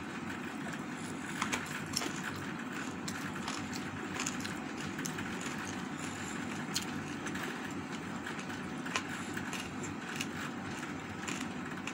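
Chewing and mouth clicks of someone eating rice and chicken by hand, with a few short sharp clicks scattered through, over steady background noise.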